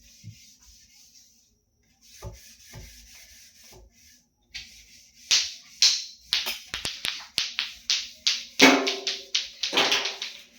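A quick, irregular run of sharp knocks and clatters from hard objects, starting about four and a half seconds in and loudest near the end.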